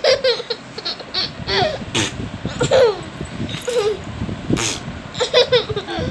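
A toddler laughing and giggling in short, high-pitched bursts, over and over.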